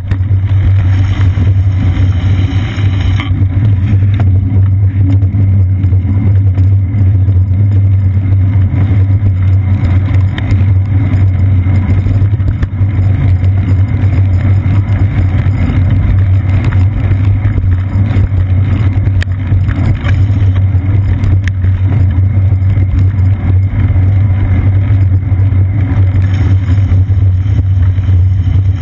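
Steady, muffled low rumble of a bicycle rolling over wet city pavement, picked up through a GoPro camera mounted on the seat post: tyre noise and road vibration carried through the frame. A little more hiss in the first three seconds.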